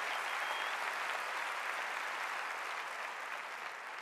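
A large congregation applauding, the clapping slowly dying away.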